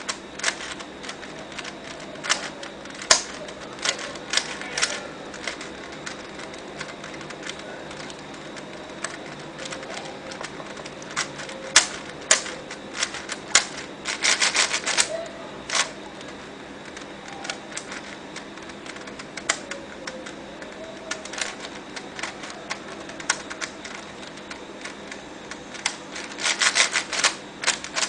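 Mini DaYan + MF8 4x4 plastic speed cube, unmodified and not broken in, being turned by hand during a solve: irregular sharp plastic clicks of layer turns, with quick runs of rapid clicking about halfway through and again near the end.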